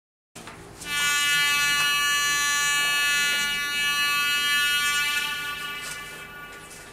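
Long horn sound of a Minitrix N-gauge ČD class 750 diesel locomotive model's sound decoder, played through its tiny onboard speaker: one steady horn blast starting about a second in, held for about four seconds, then fading away.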